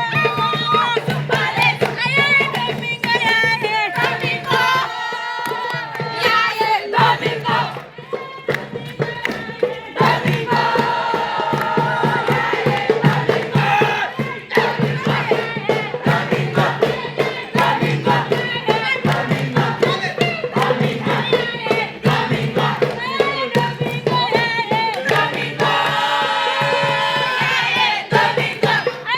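A group of voices singing and chanting together over a steady beat of sharp strikes, with a steady low hum underneath.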